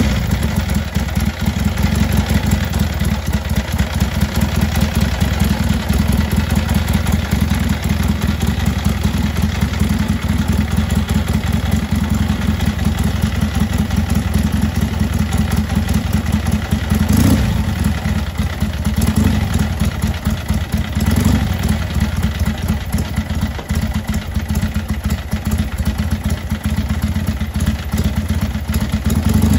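1959 Harley-Davidson XLH Sportster's 883 cc overhead-valve V-twin idling with a fast, even lumpy beat just after a kick-started cold start. A few brief throttle blips come about two-thirds of the way through.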